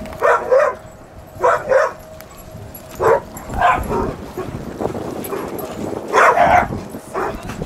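Dogs barking in short sharp yaps, coming in pairs and small clusters every second or two, with a longer run of barks about six seconds in.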